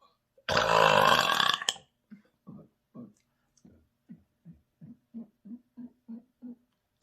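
A person's loud burp, lasting just over a second, about half a second in. It is followed by a quick run of short, low throat gulps, about three a second.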